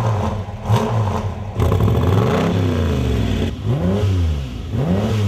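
Classic sports car engines revving in short clips cut one after another, each rev rising and falling in pitch.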